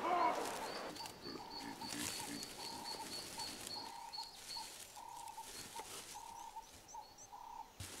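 A bird calling in the background, a run of short, even, whistled notes repeated a few times a second, over faint outdoor ambience.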